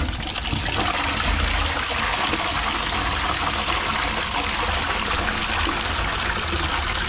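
Toilet flushing: water rushes into and swirls around the bowl in a steady rush that builds within the first second. It is a flush test of a freshly unblocked toilet, and the flush goes away freely.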